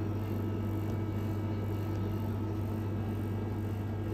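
Steady low electrical hum from snack and drinks vending machines, unchanging throughout.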